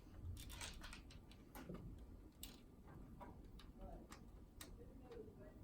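Faint, irregular metallic clicks and taps from a motherboard being set onto the case risers and screwed into a computer case.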